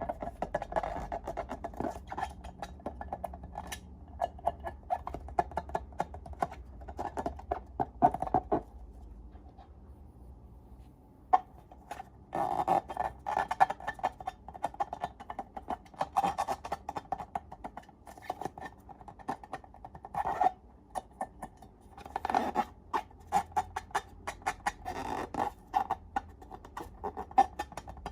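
Glossy slime being worked by hand, with dense runs of small sticky clicks and crackles. It eases off for a couple of seconds about ten seconds in, then resumes in louder squishy clusters.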